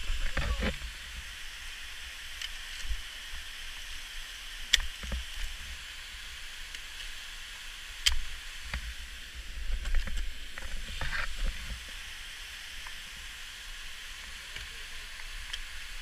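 Ice axe picks striking into waterfall ice, with crampons kicking: a few sharp impacts, the loudest about five and eight seconds in, and clusters of softer crunching knocks over a steady hiss.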